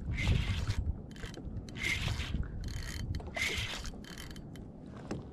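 Fishing reel's drag buzzing in repeated short bursts as a hooked sierra mackerel pulls line off the spool.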